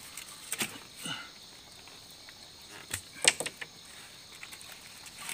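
Scattered light clicks and knocks of handling on a bamboo-slat floor as meat on a bamboo skewer and leaves are moved about. The sharpest click comes about three seconds in.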